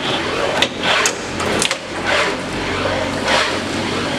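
4-blade cashew shelling machine running: a whooshing mechanical cycle that repeats about once every 1.2 seconds, with sharp clicks and a low hum underneath.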